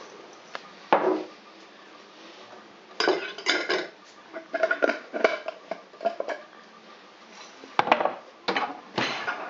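Cooking pan and metal utensils clattering: a string of knocks and clinks, the sharpest about a second in and near the end.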